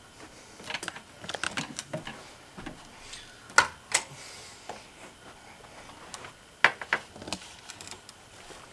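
Irregular small clicks and knocks of objects being handled and set down on a bedside nightstand, with two sharper knocks about three and a half seconds in and again near seven seconds.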